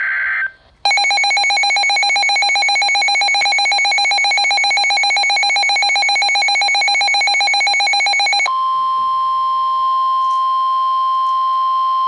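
Midland handheld NOAA weather radio going off for a severe thunderstorm warning. After the tail of a buzzing alert-header data burst, the radio's own alert alarm pulses rapidly for about seven and a half seconds. Then a single steady warning alarm tone from the broadcast plays through its speaker until near the end.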